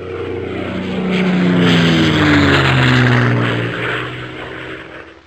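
Airplane fly-by sound effect: an engine drone grows louder, then fades away, its pitch falling as it passes.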